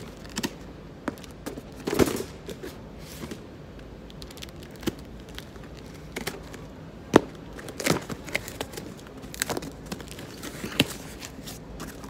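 Packing tape on a cardboard case being slit and torn open by hand: scattered crackles, short rips and sharp snaps, with the loudest snaps about two, seven and eight seconds in.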